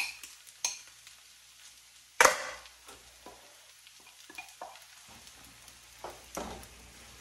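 Stir-frying noodles and tofu in a skillet: scattered taps and knocks of utensils against the pan over a faint sizzle, with one sharper knock about two seconds in.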